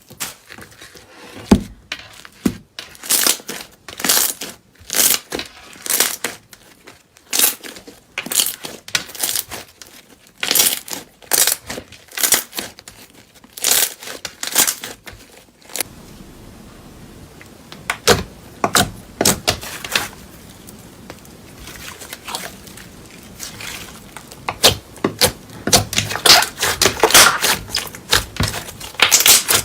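Slime being squeezed and pressed by hand, giving a run of sharp crackling pops and clicks that come thicker near the end.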